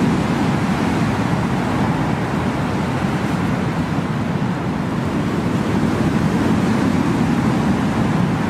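Steady rushing noise, heaviest in the low range and without any clear tone or rhythm, presented as the sound of Jupiter's south pole, a mostly fictional space sound.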